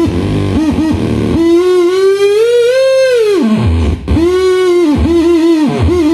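Handmade oscillator circuit with a human body as its resistor: a loud, buzzy electronic tone whose pitch wobbles and dips as the fingers' grip on the wire ends changes. In the middle it glides slowly up for about two seconds and drops away. It breaks off briefly about four seconds in, then comes back wobbling.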